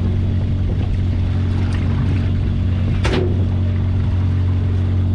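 A small fishing boat's engine running with a steady low drone, and a single sharp clack about three seconds in.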